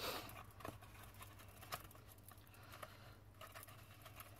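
Faint rustling and handling of paper ribbon and cardstock as a ribbon is tied into a bow, with a slightly louder rustle at the start and a few soft scratchy touches after.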